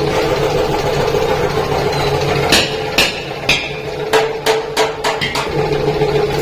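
About eight hammer blows on sheet-iron work, irregular and sharp, starting a couple of seconds in, over a steady machine hum.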